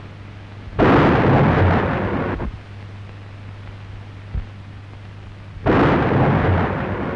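Two shots from a warship's deck gun in firing practice, about five seconds apart. Each is a sudden blast that trails off over about a second and a half, over a steady low hum.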